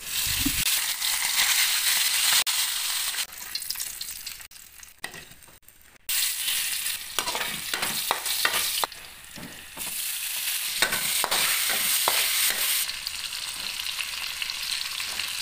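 Hot oil sizzling in a wok, first around a frying tilapia, then around sliced ginger being sautéed. A metal spatula scrapes and taps against the pan. The sizzle dies down for a few seconds and comes back suddenly about six seconds in.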